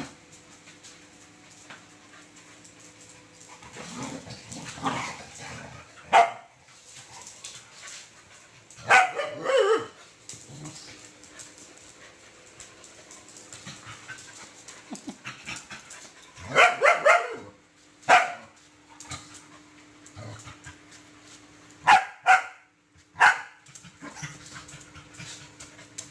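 Several dogs play-fighting, barking and yapping in short bursts: a volley about nine seconds in, another around seventeen seconds, and a few quick sharp barks near the end.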